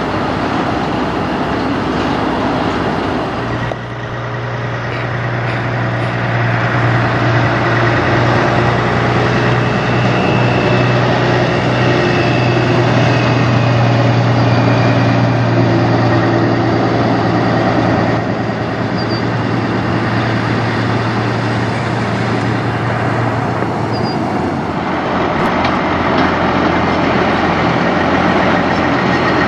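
Semi-truck diesel engines: a tractor-trailer with a livestock trailer rolling past, then a Freightliner Classic's diesel running at one steady pitch for about twenty seconds. Near the end a Kenworth W900 tractor-trailer pulls in, its engine note lower and growing louder.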